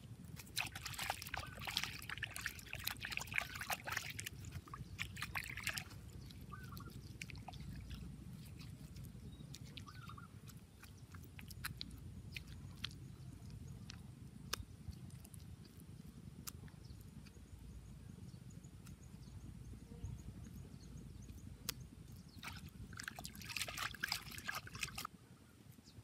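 Wet mud being worked by hand on a clay furnace, squelching and slapping in bursts through the first few seconds and again near the end.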